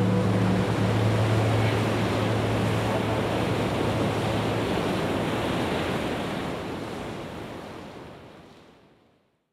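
Ocean surf, a steady rushing wash of waves, with a low steady hum under it for the first half. It fades out to silence over the last couple of seconds.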